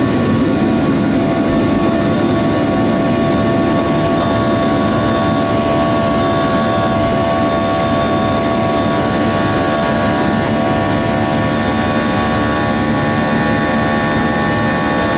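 Boeing 737-800's CFM56-7B turbofan engines at takeoff thrust, heard inside the cabin over the wing: a steady, loud roar with a whine of several steady tones, as the jet lifts off the runway and climbs.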